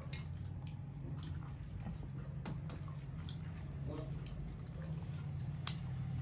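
Two people eating rice and curry with their hands: scattered small wet clicks and squishes of chewing and of fingers mixing rice, over a steady low hum.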